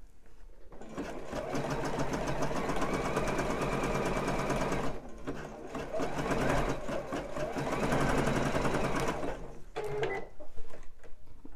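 Juki sewing machine stitching elastic onto fabric, running in two spells with a short pause about five seconds in, then stopping near the end as the bobbin thread runs out.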